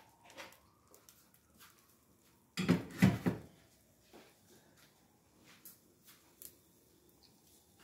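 Kitchen things being handled: a short clatter of several knocks about two and a half seconds in, with a few faint clicks otherwise.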